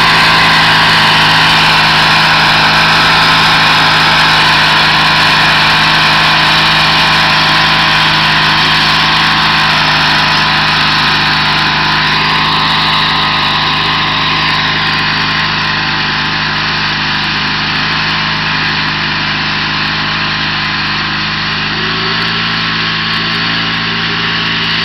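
Garden tractor engine running steadily while it drives a rear-mounted tiller through the soil, slowly getting quieter as it moves away.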